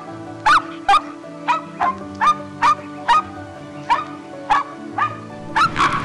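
Puppy yapping: short, high yips, about two a second, over steady background music.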